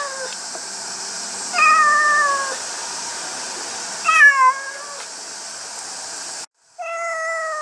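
Tabby cat meowing repeatedly inside a plastic pet carrier: drawn-out meows, each falling in pitch, about every two and a half seconds.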